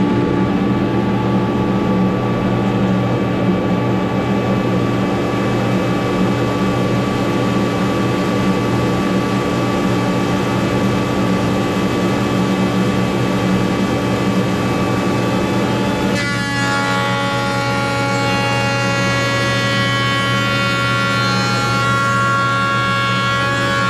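Woodworking jointer and dust collector running with a steady, loud machine hum. About two-thirds of the way through, the sound shifts and higher whining tones join in as a board is fed across the jointer's cutterhead.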